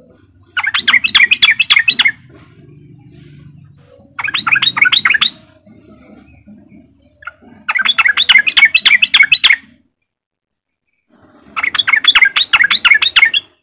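Yellow-vented bulbul giving its chattering 'riwik' call: four bursts of fast repeated notes, each one to two seconds long, with short pauses between.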